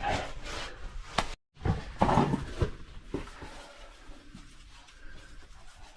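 A caver crawling through a tight rock squeeze: body and gear scraping and shuffling against rock, with hard breathing. The sounds are irregular, with a few sharp knocks early on, a brief dead cut about a second and a half in, and they grow quieter after about three seconds.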